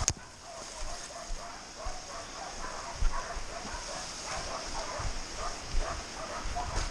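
Pig dog barking over and over in quick succession, the sound of a dog bailing a wild pig, holding it at bay.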